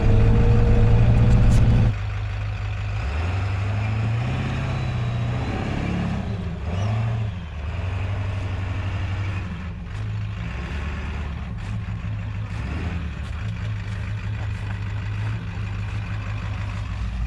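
Ford Bronco's Powerstroke diesel engine running at low speed on a trail, a steady low drone whose pitch rises and falls a few times. The sound drops noticeably in loudness about two seconds in.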